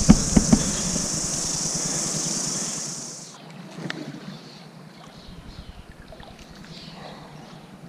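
A steady, high-pitched insect chorus with a few handling knocks at the start. It cuts off suddenly a little over three seconds in, leaving a quiet background with faint rustles.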